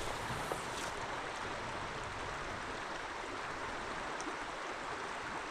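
Trout stream's water running steadily: an even rushing of moving water, with a faint tick or two.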